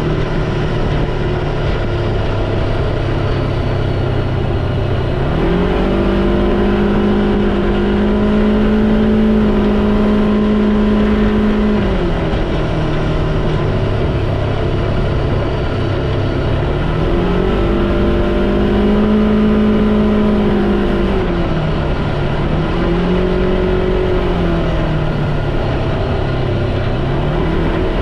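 A vehicle engine running under changing throttle. Its pitch jumps up about five seconds in and holds steady for several seconds, then drops back, and does so again twice more with shorter rises near the end.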